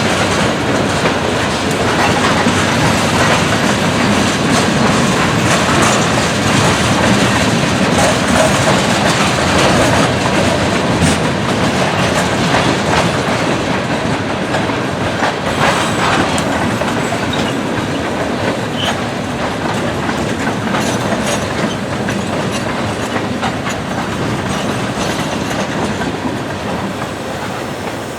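Freight cars rolling past: a steady rumble of steel wheels on rail, with clicks over the rail joints, slowly getting quieter toward the end.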